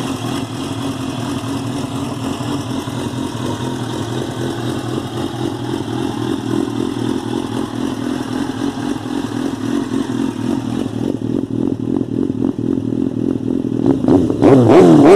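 A 2005 Suzuki GSX-R 750 K5's inline-four engine idles steadily, then is revved quickly near the end, its pitch rising sharply and dropping back.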